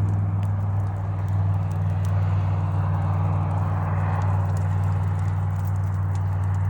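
An engine running steadily at idle, a constant low hum with a rough, even rattle.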